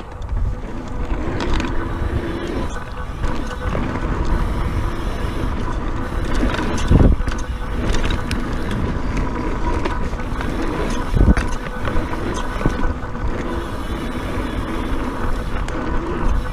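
Scott Genius mountain bike ridden fast down a dirt trail: wind buffeting the handlebar camera's microphone over the rumble of tyres on dirt and the bike's rattle, with heavy thumps about 7 seconds and 11 seconds in as it lands off rollers.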